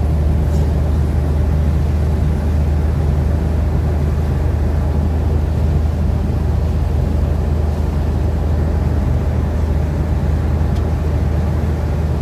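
Steady low drone of engine and road noise heard from inside a moving vehicle's cabin.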